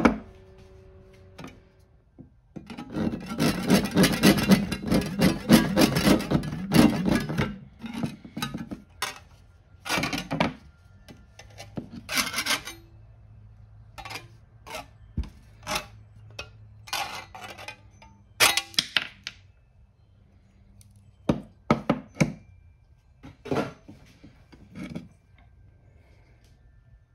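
Hand tool cutting a carburetor throttle-shaft bushing down flush: several seconds of quick rasping strokes, then single scrapes and taps at irregular intervals.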